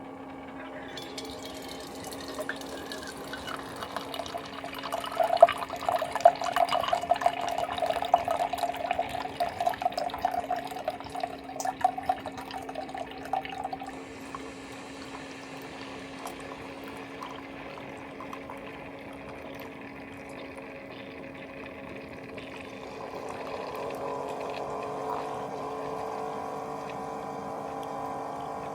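Water running, with a spattering stretch early on and a steady low hum underneath; a fainter tone creeps upward near the end.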